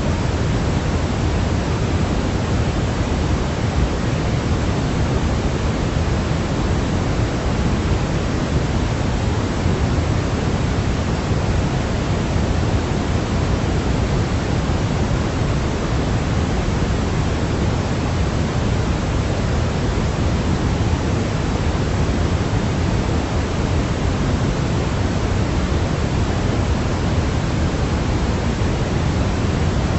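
Continuous synthetic sleep noise: an even, unchanging hiss, heavier in the low end than in the highs.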